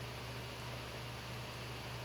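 Room tone: a steady hiss with a constant low hum, and no distinct pick clicks.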